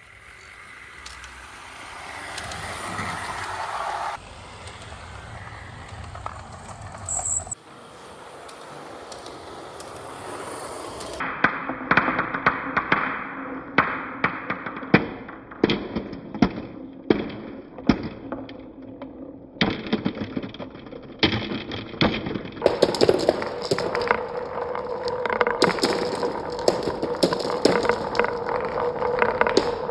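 Glass marbles rolling and clattering through a marble run. First a steady rolling rush, then from about eleven seconds in many rapid, sharp clicks as the marbles knock against the track and each other.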